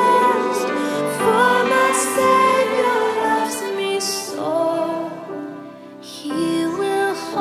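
Slow, gentle hymn music: a female voice sings the melody over soft accompaniment. The music dips quieter for a moment about six seconds in.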